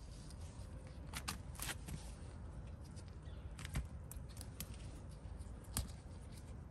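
Green chillies being picked by a gloved hand: leaves and stems rustling, with a few short sharp snaps and clicks as the pods come off, the loudest about four and six seconds in, over a steady low rumble.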